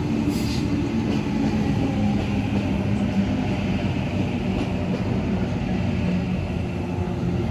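Passenger train running through the station platform: a steady rumble with a low, even hum.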